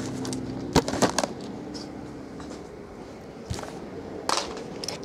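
Sealed cardboard trading-card boxes being picked up, shuffled and set down on a table: a few sharp knocks and taps, a cluster about a second in and a few more near the end.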